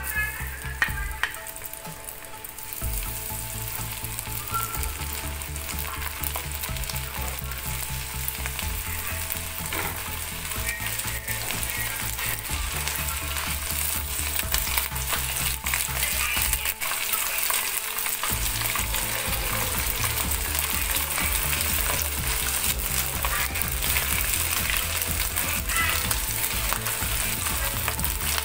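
Breaded chicken strips deep-frying in hot oil in a pan: a steady sizzle and crackle that grows louder and denser as more strips go into the oil. A couple of sharp clicks about a second in, as tongs touch the pan.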